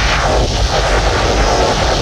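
Ghostbusters proton pack wand firing: the proton stream sound effect, a loud, steady crackling buzz over a deep rumble, with a brief sweep in the crackle about half a second in.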